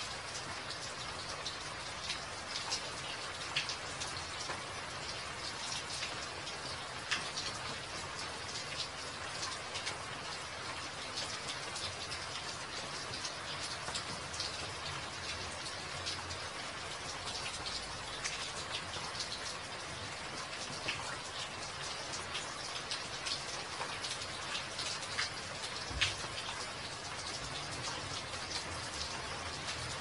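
Steady rain falling, with individual close drops heard as sharp ticks scattered through it and one louder tick near the end.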